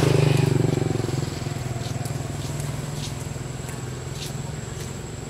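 A motor vehicle's engine running steadily as it passes, loudest in the first second and then slowly fading away.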